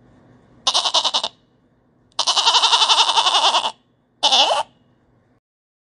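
Goat bleating three times: a short quavering bleat about a second in, a long one in the middle, and a short one near the end.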